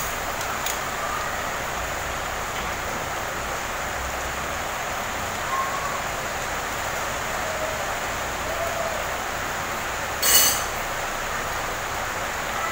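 Heavy rain falling outside: a steady hiss. A brief sharp clink comes about ten seconds in.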